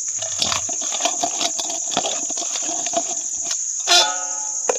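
A hand squelching and tapping through wet masala paste in a stainless steel bowl, mixing in a little water, over the steady high chirping of crickets. About four seconds in there is a short, louder pitched sound.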